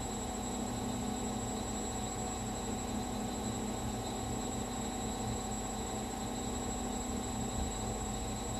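Gorenje washing machine spinning at a steady speed: an even whir and hum with a few constant tones, no knocks or changes.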